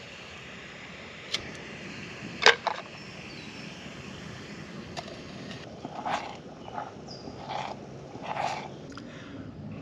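Night bush ambience with a steady hiss, a few sharp clicks in the first three seconds, then an animal calling several times in rough, noisy calls in the second half.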